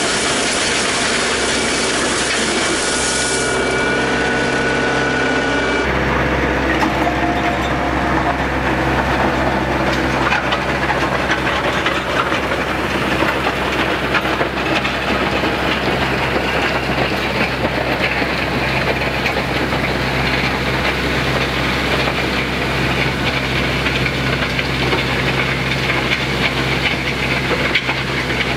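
RK 55 compact tractor's diesel engine running steadily as it drags a land plane over a gravel driveway, with the gravel scraping and crunching under the blades. The sound changes abruptly about six seconds in.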